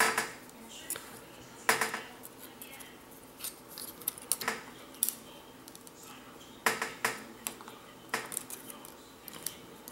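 Small hard clicks and taps from handling an opened iPad Air 2 as the display assembly's flex cables are pressed onto the logic board connectors, coming in scattered clusters.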